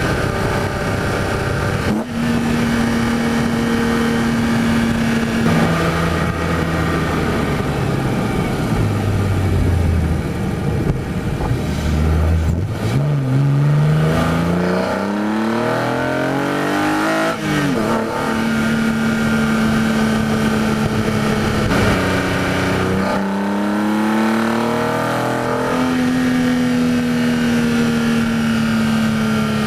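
BMW E46 M3's S54 inline-six engine breathing through a carbon-fibre airbox, heard while driving. The engine note falls, then rises in a long pull through the revs that breaks off at a gear change about halfway in. A shorter rise in revs follows near the end, and between the pulls it runs at steady cruise.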